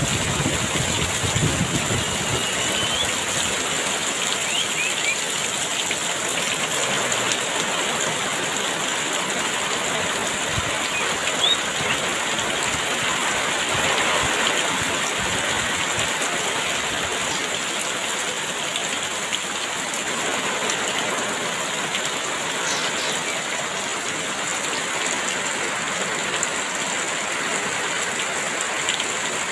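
Heavy rain falling steadily, an even hiss with no letup. A few faint, brief bird chirps are heard through it.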